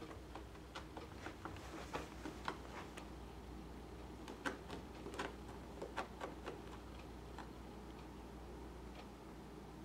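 A cat rolling and pawing on a cloth mat over a hardwood floor: faint, irregular clicks and scuffs, clustered about two seconds in and again around the middle.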